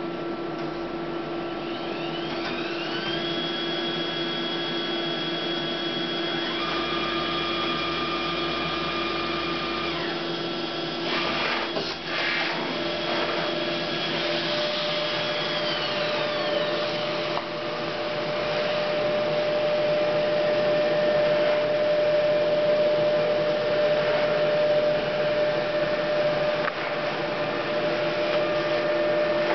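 Memjet SpeedStar3000 inkjet label printer running a print job: a steady mechanical whirr with motor whines that rise in pitch about two seconds in, hold, then fall away around the middle. A quick run of clicks comes near the middle, and a steadier lower whine takes over and grows louder in the second half.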